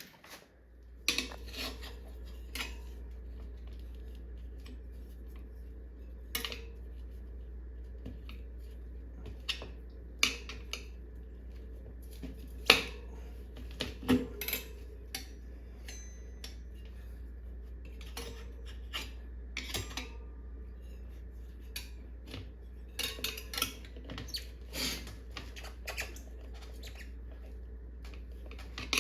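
Steel tire irons clinking and knocking against a motorcycle wheel rim while prying the tire bead over the rim edge, in scattered irregular strikes with a few brief squeaks.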